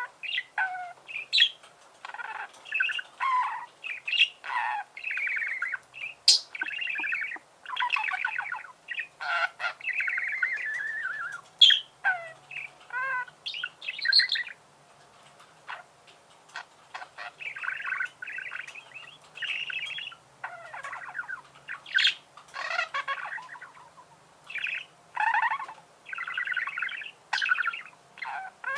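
Budgerigars warbling and chattering: a steady stream of short scratchy chirps, squawks and warbles, pausing briefly about halfway through before starting up again.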